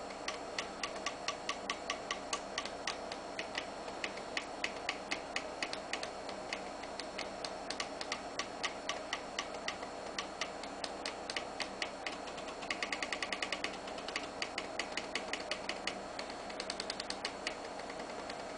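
Floppy-drive stepper motors of a homemade pen plotter stepping as it draws: a steady ticking of about three clicks a second, with two short runs of rapid clicking about two-thirds of the way through and near the end.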